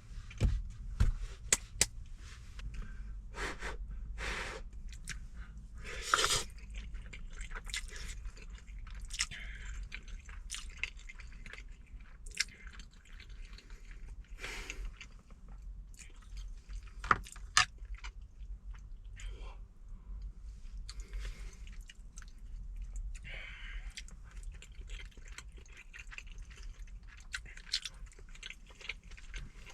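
Close-up eating sounds of a person chewing a braised chicken and rice dish, with wet mouth noises and sharp utensil clicks now and then, louder clicks near the start and about halfway through, over a steady low hum.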